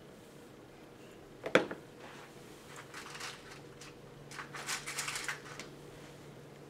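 Hands working a section of wet hair. A single sharp knock comes about a second and a half in, followed by two spells of light scratchy rustling and clicking.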